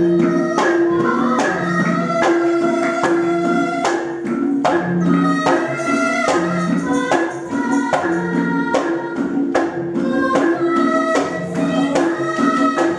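Javanese gamelan playing, with struck bronze kettle gongs and metallophones ringing in a busy, regular beat, under a girl singing a palaran (tembang) melody into a microphone.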